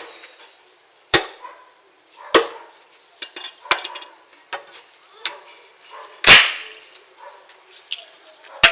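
Repeated sharp knocks: five loud ones, one to two and a half seconds apart, with lighter clicks between them. The loudest and longest comes about six seconds in.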